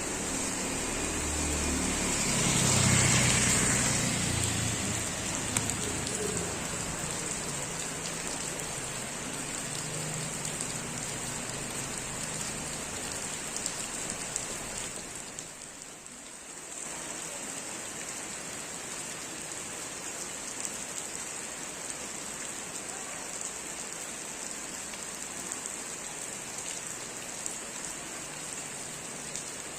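Heavy rain falling steadily and pattering on surfaces, a continuous hiss. It swells louder with a low rumble about three seconds in, and eases briefly past the middle.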